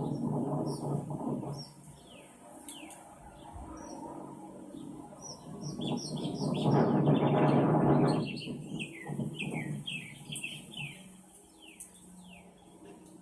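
Small birds chirping over and over in short, quick, falling notes. A louder rush of noise swells and dies away about seven seconds in, after a similar one fades out at the start.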